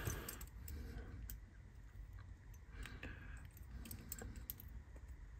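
Faint, scattered small clicks and light metallic rattles as the stripped diecast chassis of a Hornby Dublo locomotive is picked up and turned over in the hands.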